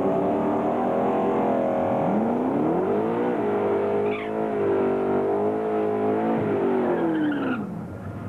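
Drag car doing a burnout: the engine revs up about two seconds in and is held at high revs while the rear tyres spin and squeal, then the revs drop away near the end.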